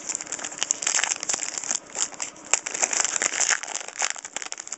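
Plastic wrapper of a trading-card pack crinkling and crackling in the hands as it is torn open, with dense irregular crinkles and clicks.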